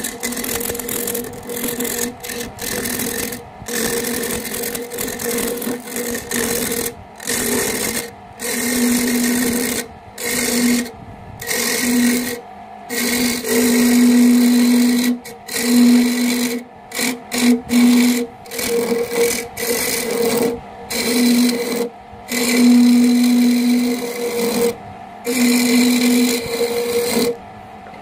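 Small wood lathe running with a steady hum while a hand-held chisel scrapes the spinning wooden handle, a hissing cutting noise over the motor. The sound comes in spells of a second or two, with many brief gaps where it cuts out.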